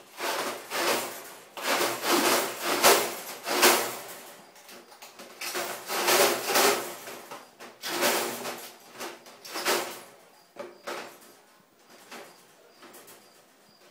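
Folding wire dog crate rattling and scraping in irregular bursts as the dog inside moves about on its floor. The bursts come thickly for the first ten seconds or so, then thin out and grow quieter.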